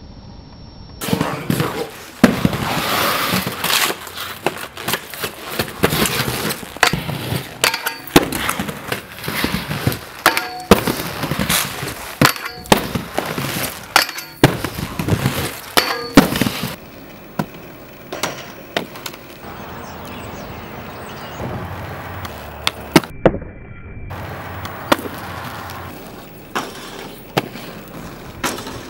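Inline skates rolling on pavement and grinding metal handrails, with many sharp clacks as the skates hit and leave the rails and land. The sound is densest in the first half and thins after about seventeen seconds to quieter rolling with a few separate clacks.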